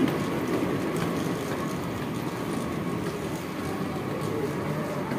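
Steady rumble of hard suitcase wheels rolling over a tiled walkway floor, with a faint steady hum underneath.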